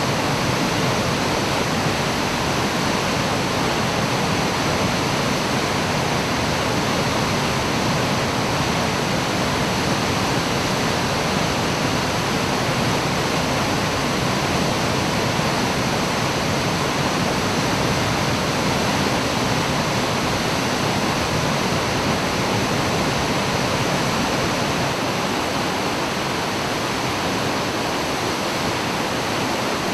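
Waterfall crashing steadily: a 30 m straight-drop fall making a constant, even roar of water.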